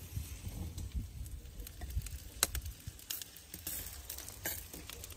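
Caul-fat-wrapped lamb kebabs grilling over charcoal: scattered pops and crackles as the fat drips onto the coals, over a low rumble.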